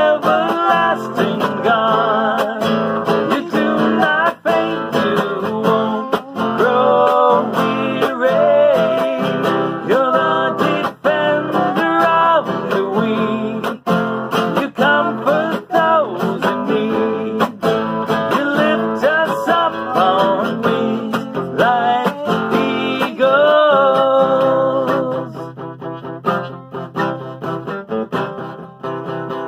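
Acoustic guitar strummed steadily under singing voices. About 25 seconds in, the singing stops and the guitar plays on alone, softer.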